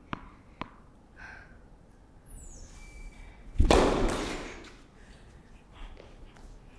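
A tennis ball bounced twice on the hard indoor court, then about three and a half seconds in a serve is struck: a loud hit whose noise echoes through the indoor hall and dies away over about a second.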